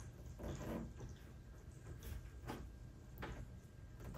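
Faint handling sounds: a few soft clicks and rustles as a plastic fender flare is held and pressed into shape against a kei truck's wheel arch.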